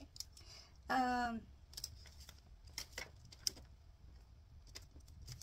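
Small plastic dice clicking against each other and the tabletop as they are picked out of a pile, a scattering of light separate clicks. A woman gives a short hummed "mm" about a second in.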